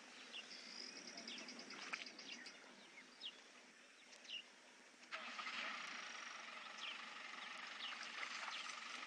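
Scattered short, high chirps, then about five seconds in a vehicle engine starts up and runs steadily.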